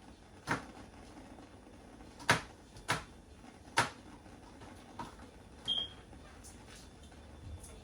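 Knife knocking and clicking on a cutting board as garlic cloves are cut and peeled: a handful of sharp knocks at uneven intervals, the loudest a little after two seconds in.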